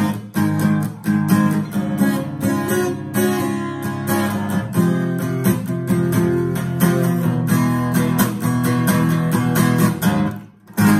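Acoustic guitar strummed in a steady rhythm of chords. Near the end the playing stops for a moment, then one last chord is struck and left ringing.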